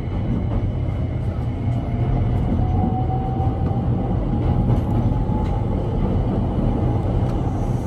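Keihan 800 series electric train running, heard from just behind the driver's cab: a steady low rumble of wheels and running gear, with a faint whine that rises slowly in pitch from about two and a half seconds in.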